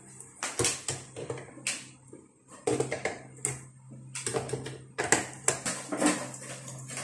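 Irregular clicks, taps and scrapes of the front-panel control knobs on a Konzert 502 amplifier being pulled off their shafts, over a faint steady low hum.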